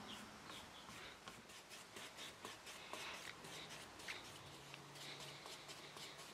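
Faint rubbing and light scratchy ticks of a hand working over the finished wooden surface of a marquetry box.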